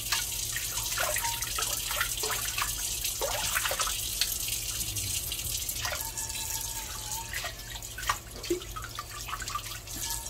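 Water running from a pull-out kitchen faucet and splashing over a stainless steel frying pan as it is lifted from the wash water and rinsed, with drips and a few light knocks of the pan against the stainless sink.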